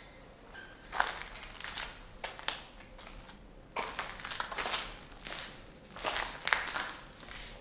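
Footsteps crunching over rubble and loose debris, an uneven step every half-second to second.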